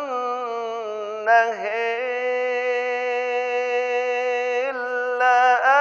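A man reciting the Quran in melodic tajweed style, drawing out the word "wan-nahar" ("and the day"). After some ornamented turns in pitch, he holds one long steady note for about three seconds, then rises into another ornamented turn near the end.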